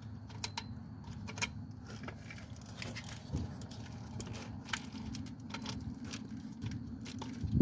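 Faint, irregular metallic clicks and clinks of a bolt and hand tools being worked, over a steady low hum.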